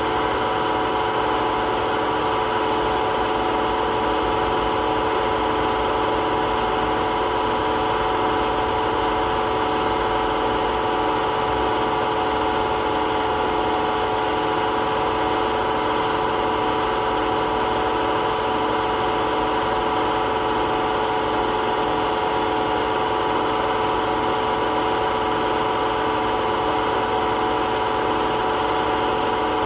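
Hotpoint WMA32 washing machine spinning at a steady high speed, a continuous whine over a rumble from its worn drum bearings.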